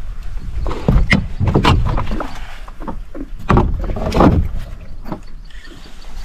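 Irregular knocks, bumps and rustles of handling aboard a small fishing boat while a fish is played on rod and reel, growing quieter near the end.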